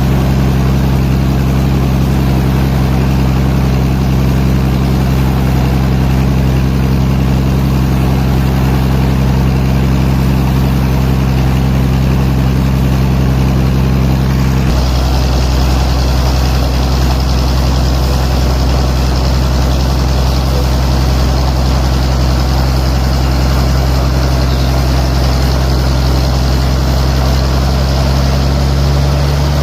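Heavy machinery engine running steadily. About halfway through, the sound changes abruptly to a deeper drone with more hiss.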